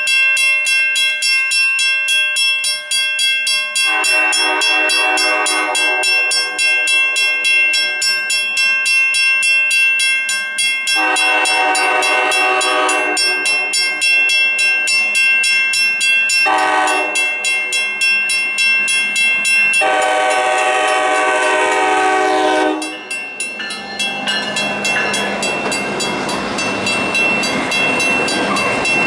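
Lead locomotive's air horn on an EMD F9A sounding two long blasts, one short and one long: the standard grade-crossing signal. Under it a crossing bell rings steadily. Near the end the diesel locomotives pass close by with a rush of engine and wheel noise.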